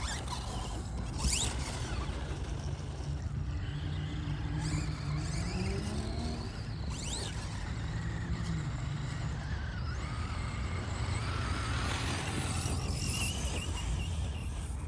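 Electric brushless RC car driving, its motor and drivetrain whine rising and falling as it speeds up and slows, with two quick high-pitched sweeps. Under it runs a steady low rumble.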